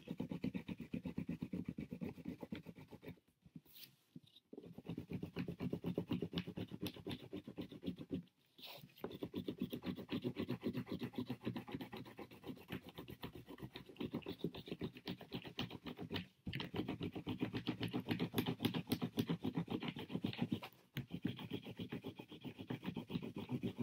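A wax crayon pressed down hard and scrubbed rapidly back and forth across paper laid over a cardboard cutout, making a fast scratching that stops briefly a few times.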